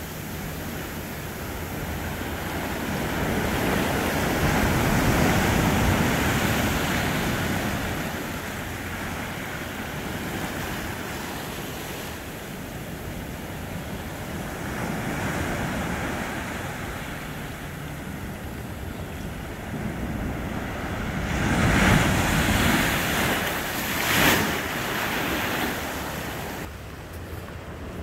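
Ocean surf washing in over rocks and onto the sand, a continuous rushing that swells and ebbs with each wave. The loudest surges come a little over two-thirds of the way through.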